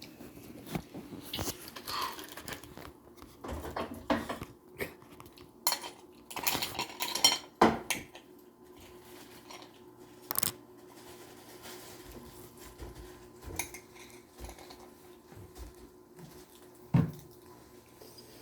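Cutlery clinking and scraping against bowls and plates during a meal, in scattered irregular knocks with a few louder clinks.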